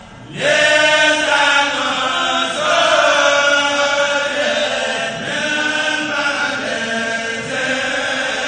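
Men's kourel choir chanting a Mouride khassida together through microphones and loudspeakers. A brief pause at the start, then the group comes in loudly on a new phrase about half a second in and chants on steadily.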